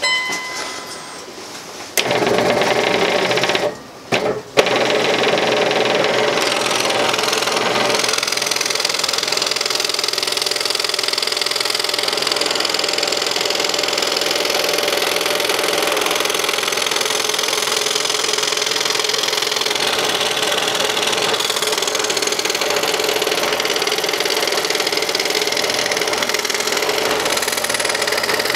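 Scroll saw blade reciprocating as it cuts through a wooden blank. It starts abruptly about two seconds in, cuts out briefly around four seconds, then runs steadily.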